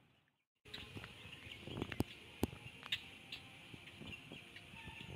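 Silence for about half a second, then faint marsh ambience: a steady high insect drone, with a few sharp clicks about half a second apart near the middle.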